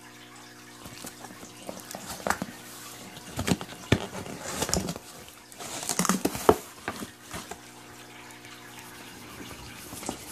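Cardboard shipping box being opened: flaps and lid rustle, scrape and knock over a few seconds, loudest around the middle, against a steady low hum.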